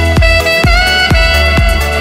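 Background music: a dance track with a steady kick-drum beat about twice a second under a held melodic lead line.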